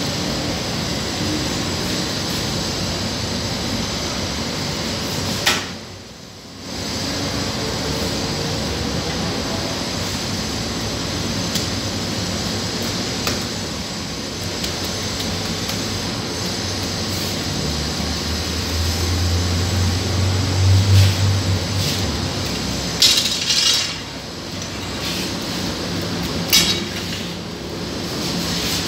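Bakery working sound: a steady machine hum with scattered clinks and knocks as dough is worked on a wooden peel at a Sangak oven, and a deeper hum swelling for a few seconds past the middle. The sound drops out briefly about six seconds in.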